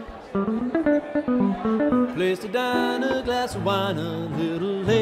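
Live band music led by an archtop guitar playing a run of single notes, with a man's voice singing along at the microphone from about halfway through.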